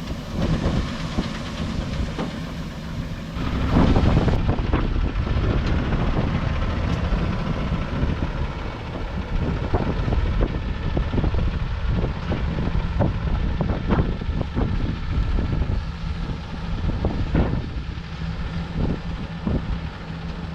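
Heavy farm-machinery engine running steadily, with frequent rattles and knocks and a louder rush about three and a half seconds in.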